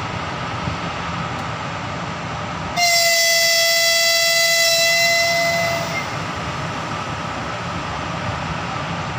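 EP1M electric locomotive sounding its horn in one long, steady blast of about three seconds as it pulls a passenger train out of the station, the long blast being a departure signal. The horn starts about three seconds in and cuts off near six seconds, over the steady low rumble of the moving train.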